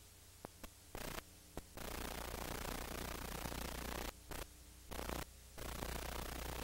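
Hiss of static over a low mains hum, the hiss switching abruptly on and off several times with a few short clicks: noise from an old analogue videotape recording.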